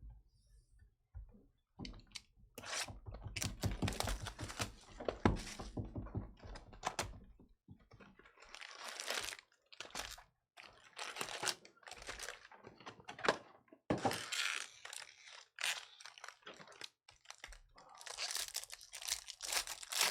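Baseball card box and packs being opened and handled: irregular tearing, crinkling wrapper and cardboard, with clicks and thunks as the cards are shuffled through. The sound comes in clusters, heaviest in the first several seconds, then in short bursts.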